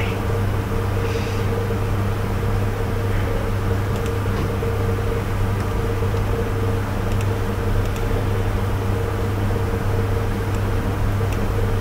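Steady low electrical hum with a fainter higher tone above it, and a few faint clicks.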